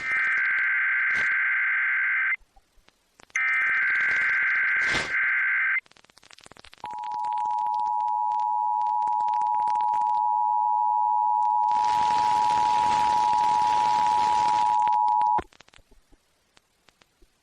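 Emergency Alert System test over the radio: two raspy digital SAME header data bursts, each about two and a half seconds long with a second's pause between them. About a second later the steady two-tone EAS attention signal starts, holds for about eight and a half seconds and cuts off abruptly. A hiss joins under the tone for its last few seconds.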